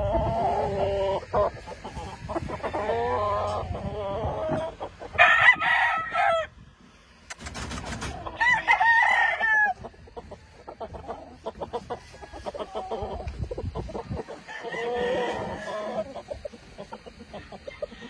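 Several gamefowl roosters crowing one after another, the loudest crow about five seconds in and others near the start, around eight seconds in and near fifteen seconds, with short clucks in between.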